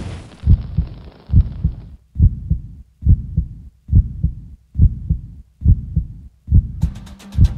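Heartbeat sound effect: deep double thumps, lub-dub, about once every 0.85 s. A hiss fades out over the first two seconds, and percussive music with rapid ticks comes in near the end.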